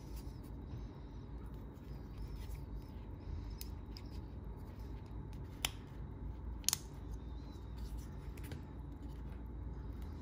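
Small metal handling sounds from a multi-jaw watch-opening tool being unscrewed and lifted off a watch: faint scraping and light ticks, with two sharp clicks about a second apart in the middle. A steady low hum runs underneath.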